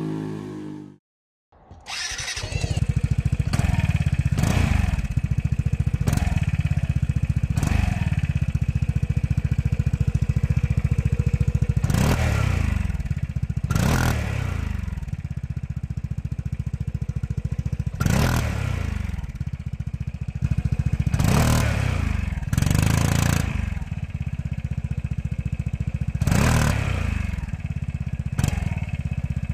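Vespa GTS 300 scooter's single-cylinder four-stroke engine idling through a Mivv Mover aftermarket exhaust, with about a dozen quick throttle blips, each rising in pitch and falling back to idle.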